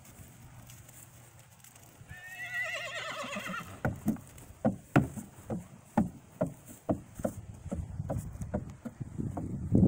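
A horse whinnies once, a wavering call lasting about a second and a half. From about four seconds in, a horse's hooves knock on a wooden platform obstacle as it walks across, about two steps a second.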